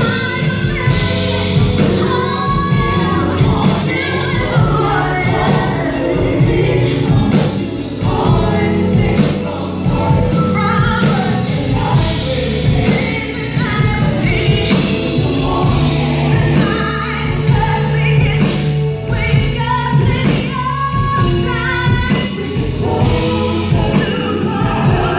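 Live R&B band performing: a woman sings lead with a group of backing singers, over electric guitar, bass guitar, drums and keyboard.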